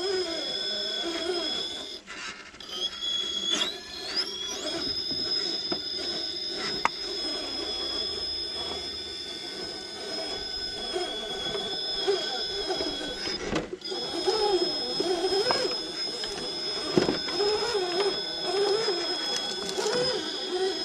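Electric motor and gear drivetrain of an Element Enduro GSpeed RC rock crawler whining as it crawls up over rocks. A steady high whine runs under a lower whine that wavers up and down with the throttle, with scattered clicks and knocks of tyres and chassis on stone. The sound briefly drops out twice, about two seconds in and near the middle.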